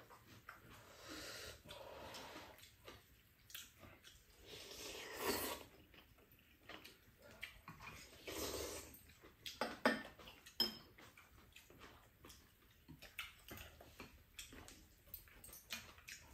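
People eating ramen noodles with chopsticks: several soft slurps of noodles, with chopsticks clicking on bowls and a few sharp clinks of tableware about two-thirds of the way through.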